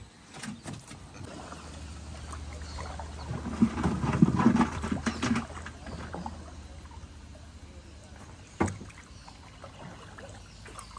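Water splashing and sloshing around a wooden outrigger dugout canoe, with knocks on the wooden hull; loudest about four to five seconds in, with one sharp knock near the end.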